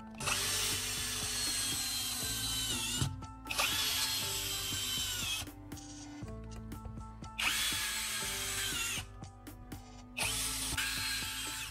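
Power drill driving screws through metal angle brackets into a wooden board, in four runs of a second and a half to three seconds each. The motor's whine drops in pitch near the end of each run as the screw seats.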